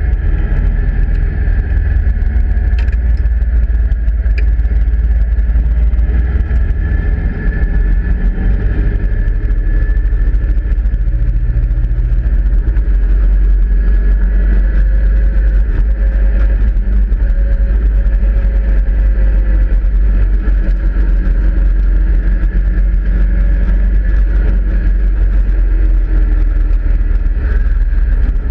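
Caterham Seven race car's engine running hard at racing speed, heard from its open cockpit, the note rising and falling gently with the throttle, over heavy wind buffeting on the microphone.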